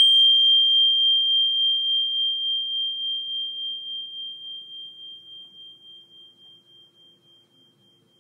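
A small metal meditation bell or chime struck once, ringing one clear high tone that wavers and slowly dies away over about eight seconds.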